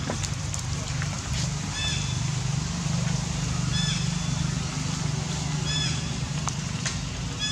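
A short, high-pitched animal call repeated about every two seconds, four times, over a steady low rumble, with a few faint clicks.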